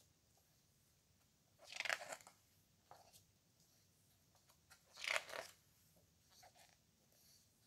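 Heavy coated-paper pages of a hardcover photobook being turned by hand: two brief papery swishes, about two seconds and five seconds in, with a few faint soft ticks from the pages in between.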